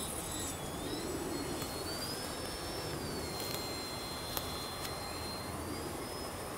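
Thin high whine of a Yak-55 model aircraft's motor flying overhead, gliding up and down in pitch as the throttle and distance change, over a steady outdoor background hiss. One short click about four seconds in.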